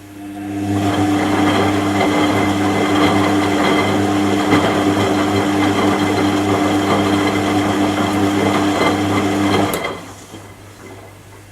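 Washing machine motor starting with a click, picking up speed over about a second to turn the drum, running steadily with a hum and a whine for about nine seconds, then cutting out and winding down.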